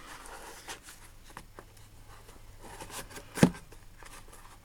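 Small metal tools and their wrappings being handled in a drawer: scattered light clicks and a soft rustle, with one sharper knock about three and a half seconds in.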